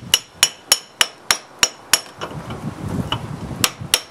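Hammer blows on a metal pipe, driving a new driveshaft center bearing onto the tailshaft. About seven quick ringing strikes come at roughly three a second, then a short pause, then a few more blows near the end.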